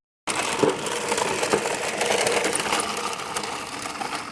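Radio-controlled toy jeep driving, its small electric motor and gearbox whirring steadily.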